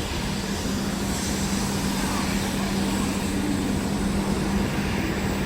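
Steady mechanical rumble of a Hokuriku Shinkansen train, with a constant low hum.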